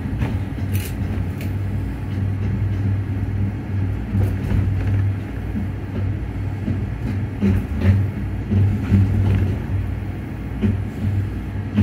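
Ride noise inside a Skyrail suspended car running along its overhead guideway: a steady low hum and rumble, with a few short knocks scattered through.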